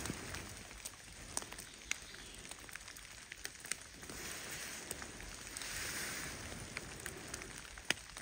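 Rain falling in a forest: a soft hiss that swells and fades a few times, with scattered sharp ticks of drops landing close by.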